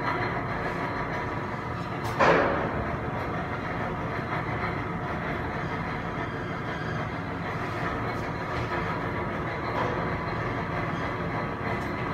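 The steady rumble and hum of a KONE MonoSpace elevator car travelling upward, heard from inside the car. About two seconds in, a sudden loud rush of noise falls quickly in pitch, and a fainter one comes near the end.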